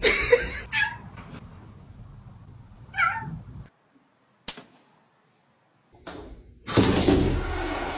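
A cat meowing: short calls at the start and again about three seconds in. After a brief silence comes a loud, noisy rushing sound lasting over a second near the end.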